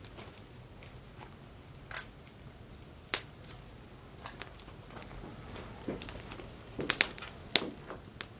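Firewood burning, with sharp pops: single cracks a couple of times, then a quick cluster of pops near the end.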